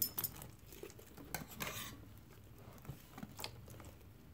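Hands squishing and kneading sticky fluffy slime of glue, shaving cream and borax in a plastic tub, with scattered faint clicks and taps against the plastic.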